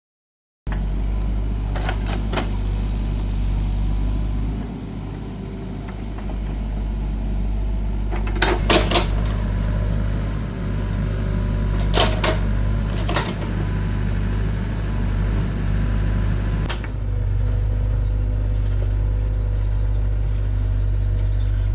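An engine running steadily with a low hum, with several sharp clanks, a pair about a third of the way in and more after the middle.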